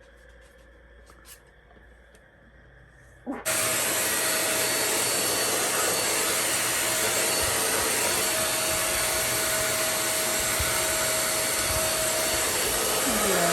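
Deerma DX700 stick vacuum cleaner switched on about three seconds in, its motor then running steadily: an even rush of air with a faint whine. A few faint clicks come before it starts.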